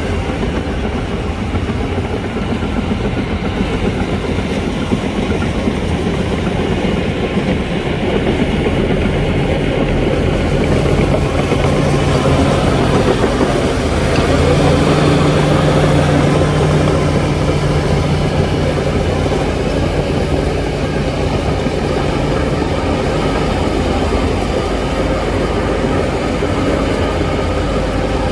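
Heavy diesel construction machine running under load. Its engine note grows stronger from about ten seconds in, peaks a few seconds later, then eases off.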